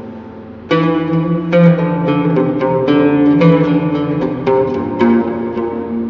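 Oud plucked with a risha (plectrum), playing a melody: a held note fades away, then about a second in a new phrase of quick plucked notes begins.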